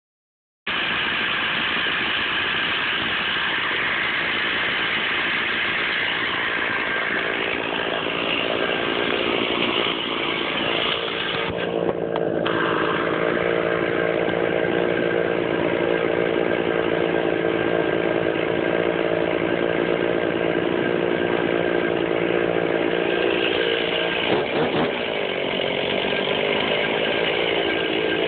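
Stihl chainsaw engine running steadily at speed. About twelve seconds in its note drops and stays lower, and by the end the chain is cutting through a large log.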